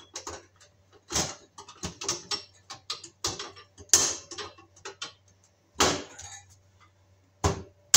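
Front cover panel of a Glen Dimplex electric baseboard heater being pressed and snapped into its clips by hand: a string of sharp, irregular clicks and knocks, the loudest about four, six and seven and a half seconds in.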